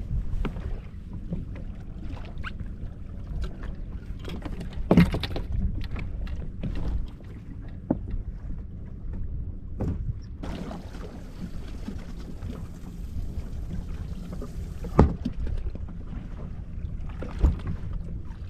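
Small fishing boat rocking on the water with a steady low rumble of wind and water, broken by a few sharp knocks on the hull or deck. A hiss starts suddenly about ten seconds in and cuts off about five seconds later.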